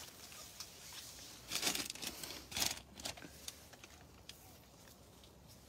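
Leaves and twigs rustling and brushing close against the phone as it pushes through foliage, with two louder rustles about one and a half and two and a half seconds in, and a few small clicks.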